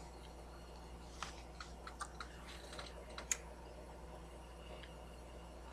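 A few faint, irregular clicks of computer keys between about one and three and a half seconds in, over a low steady hum.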